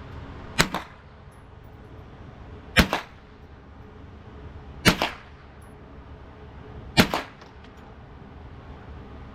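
Four single gunshots from a semi-automatic gun, fired slowly about two seconds apart, each with a short echo right after the crack.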